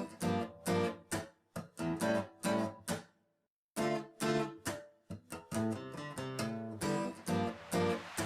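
Background music of plucked strings in a run of short, separate notes. It cuts out to complete silence for about half a second a few seconds in, then carries on.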